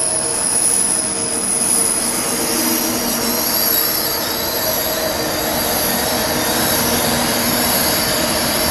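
Train running through the station, a steady high-pitched whine or squeal over a continuous rumble.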